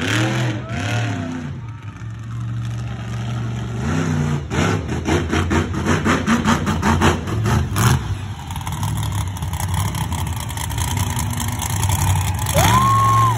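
Monster truck engine revving. It swells up and down at first, stutters in a quick run of rapid pulses in the middle, then climbs sharply near the end and holds at high revs.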